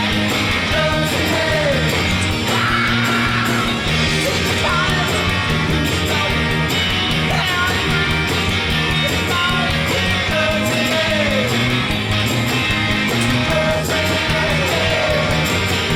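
Loud rock music with electric guitar, a steady bass line and a lead line that slides between notes.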